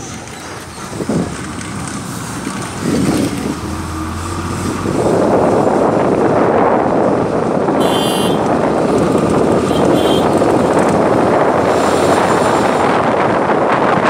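Road and wind noise inside a moving vehicle, with wind buffeting the microphone, growing louder about five seconds in. A short high-pitched sound cuts through about eight seconds in.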